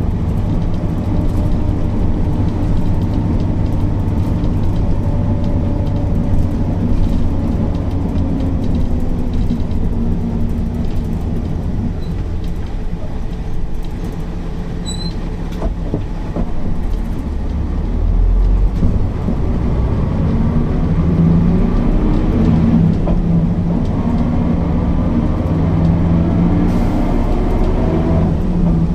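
Mercedes-Benz O408 city bus's diesel engine running under way, its pitch sinking about ten seconds in and climbing again from about halfway as the bus slows and pulls away.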